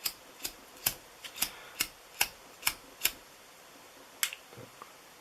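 Sharp, evenly spaced clicks from a gas lighter being worked in the hand: eight at about two a second, then one more after a pause of about a second.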